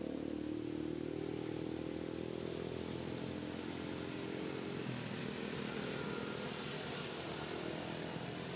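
A small engine running steadily, its pitch easing down a little over the first few seconds.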